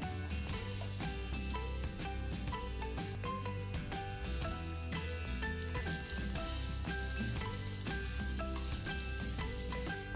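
Oil sizzling in a hot wok as leftover cooked rice fries in it and is stirred with a wooden spatula. The sizzle dips briefly about three seconds in, over background music.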